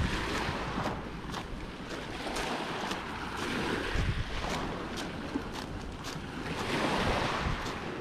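Small waves washing onto a small-pebble beach, the wash swelling twice, with scattered sharp clicks through it and wind buffeting the microphone.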